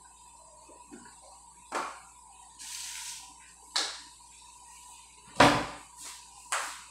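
Kitchen clatter: four sharp knocks of things being set down and handled, the loudest and deepest about five and a half seconds in, with a short hiss about three seconds in.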